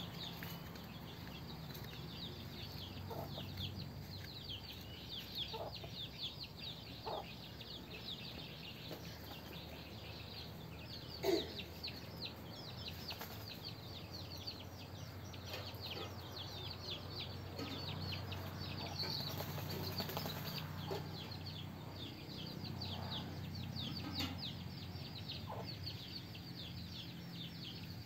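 A brood of chicks peeping rapidly and without pause, many short high calls overlapping, as they call after the mother hen who has gone up to roost in a tree. A few lower calls come in among them, a single knock sounds about eleven seconds in, and a low hum runs underneath.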